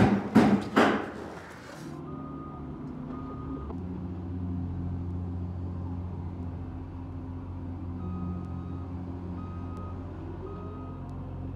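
A heavy vehicle's reversing alarm beeping about once a second over the steady drone of its engine, the beeps stopping for a few seconds in the middle and then resuming.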